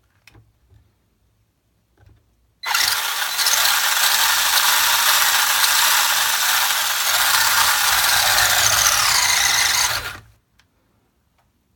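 WLtoys 12428 RC car's electric motor and gear drivetrain whirring, starting about two and a half seconds in, running for about seven and a half seconds with small rises and falls in pitch, then cutting off. The car is on a battery that has suddenly gone dead.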